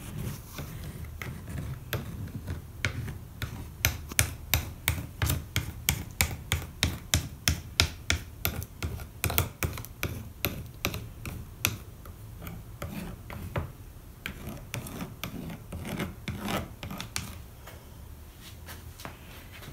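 Plastic fid rubbed in quick repeated strokes over copper foil on glass edges, about two to three scrapes a second, heavier in the middle and lighter toward the end: the foil is being burnished flat onto the glass ready for soldering.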